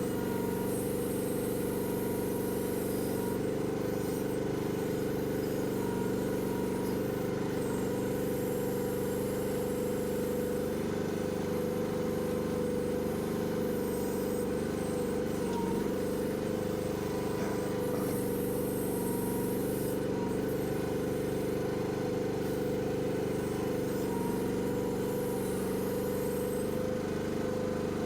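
Chinese mini excavator's engine running at a steady speed, with a high hiss that comes and goes in spells of a few seconds.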